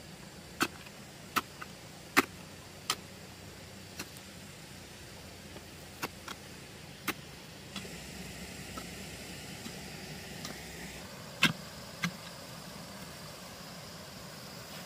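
Sharp knocks, one about every second for the first few seconds, then scattered, with the loudest near the middle and near the end, over a steady faint hiss.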